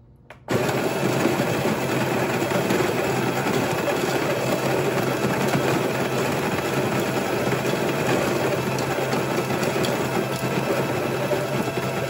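Baratza Virtuoso+ conical burr grinder starting up about half a second in and then running steadily, its motor hum under the steady noise of whole coffee beans being ground at a coarse setting.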